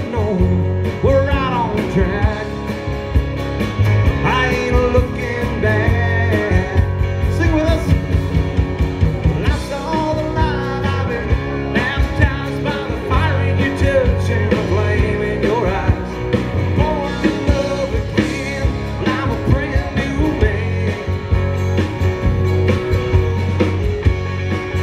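Live band playing a song, acoustic guitars over a steady beat.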